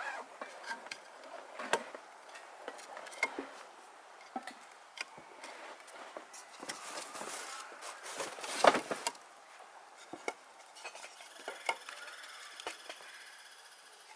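Scattered light clicks and knocks of objects being handled, with one louder clatter about nine seconds in.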